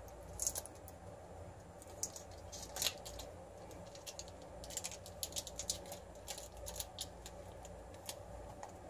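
Foil wrapper of a block of cream cheese crinkling as it is peeled open by hand: irregular, faint, sharp crackles.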